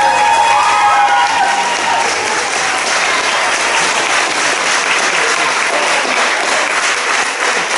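Audience applauding steadily, a brief trail of pitched sound dying away in the first two seconds.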